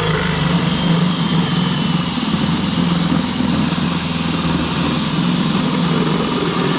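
Power drill running steadily under load, boring a hole for a trolling motor's plug connector, with a constant motor pitch.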